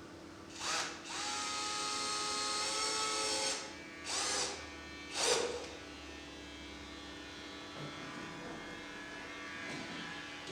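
Electric drill driving screws into a drawer runner: the motor spins up and runs steadily for about three seconds, then gives two short bursts to seat the screw.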